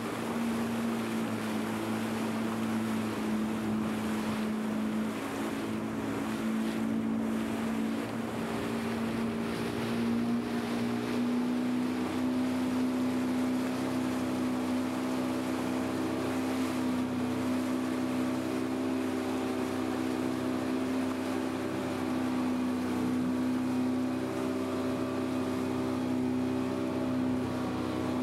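Outboard motor of an open aluminum fishing skiff running steadily under way. It speeds up slightly about ten seconds in, then holds an even drone.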